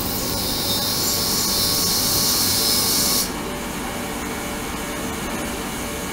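Ultrasonic cleaning tank running, its agitated water giving off a loud, high-pitched hiss. The hiss cuts off suddenly about three seconds in, leaving a quieter steady background noise.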